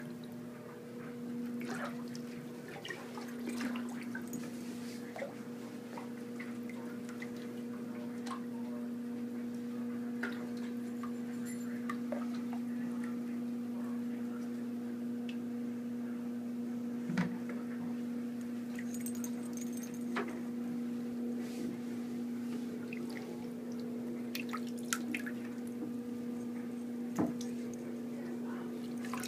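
Small splashes and drips of shallow bath water as two hedgehogs paddle and walk in a tub, with scattered light clicks. A steady hum runs underneath.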